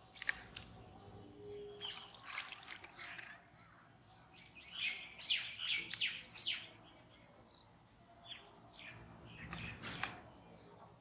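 Birds calling: a quick run of short, falling chirps about five to six and a half seconds in, with scattered single chirps before and after, and a sharp click near the start.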